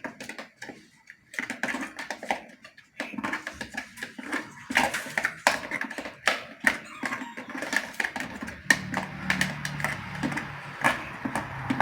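Irregular clicks, taps and knocks of a blender jar and kitchen utensils being handled, with the blender no longer running; a low steady hum comes in about three-quarters of the way through.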